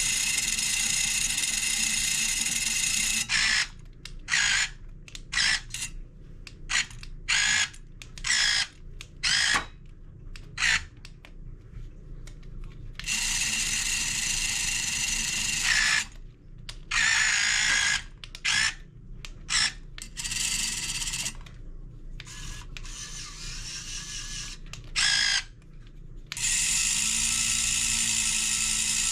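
Small electric motors and plastic gearboxes of a 1:16 scale radio-controlled Cat 272D skid steer, giving a high-pitched whine. It runs for a few seconds at a time near the start, in the middle and near the end, and in many short stop-start bursts between, as the controls are blipped.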